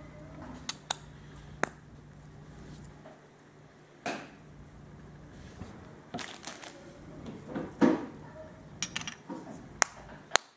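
Irregular metal clicks and knocks from a Serkisof pocket watch's steel case being handled and its snap-on case back pressed shut, the loudest knock about two thirds of the way in and a sharp snap just before the end.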